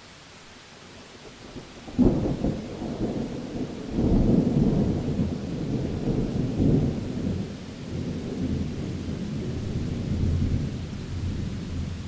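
A thunderclap cracks about two seconds in over a steady hiss of rain, then swells again a couple of seconds later into a long, low rolling rumble that slowly dies away.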